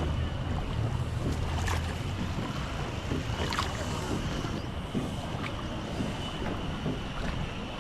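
Small rowed boat under way: scattered knocks of the oars against the boat amid water noise, with wind buffeting the microphone.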